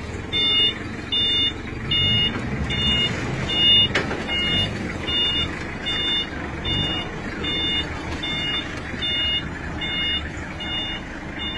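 A vehicle's reversing beeper gives a short high beep about every 0.7 seconds over a low engine rumble. There is a sharp knock about four seconds in.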